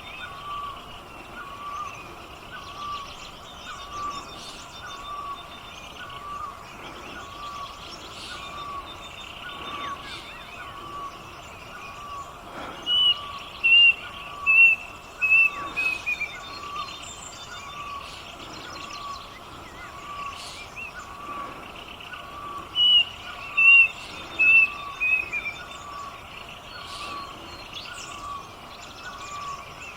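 Wild forest birds calling: one bird repeats a short note steadily, a little more than once a second. Twice, about halfway through and again some ten seconds later, another bird gives a louder phrase of five or six high notes that step down in pitch.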